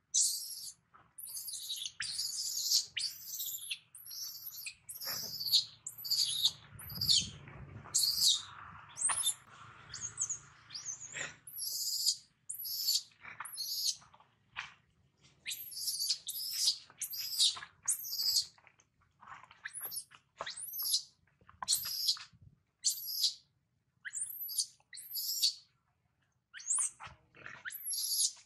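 Baby macaque screaming over and over: short, shrill, high-pitched cries, one or two a second with brief pauses, the distress calls of an infant separated from its mother. A fainter low noise runs underneath from about five to eleven seconds in.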